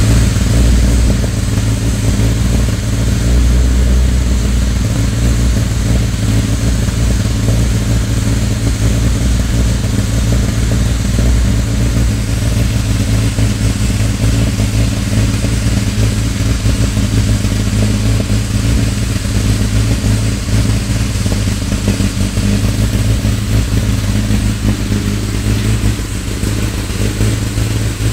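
Peugeot 205 GTI's four-cylinder petrol engine running at a steady speed, an even low note that eases slightly near the end.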